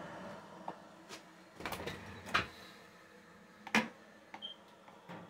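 A few light, scattered clicks and knocks of things being handled, the sharpest about two-thirds of the way through, over quiet room tone.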